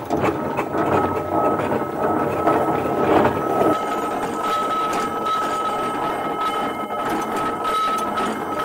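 1916 Ransomes, Sims & Jefferies steam traction engine running under way: the steady clatter of its gearing and motion together with its steam exhaust, and a steady high whine throughout.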